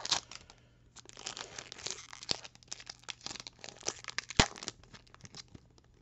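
Foil wrapper of a Pokémon trading card booster pack crinkling and tearing as it is worked open and the cards are pulled out. There is one sharp crackle louder than the rest about four and a half seconds in, and the crinkling dies away near the end.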